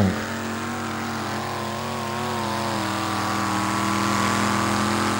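Modified pulling tractor's engine running flat out under heavy load as it drags the weight-transfer sled. The note holds fairly steady, wavers briefly, then climbs slightly in pitch and loudness. It is a run the commentator judges short of power.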